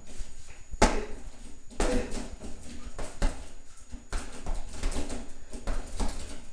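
Punches landing on a hanging heavy punching bag: a run of irregular sharp thuds, spaced about a second apart at first and coming quicker in the second half.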